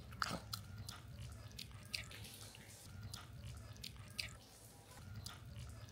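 A piglet eating from a bowl: irregular wet smacking and chewing clicks, over a steady low hum.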